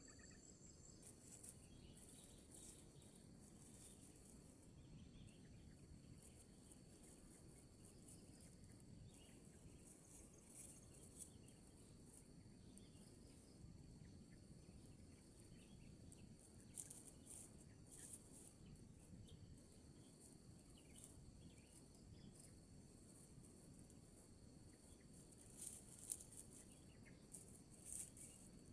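Faint forest ambience: insects chirping and buzzing in short high-pitched bursts over a steady high hum, with a low background rumble.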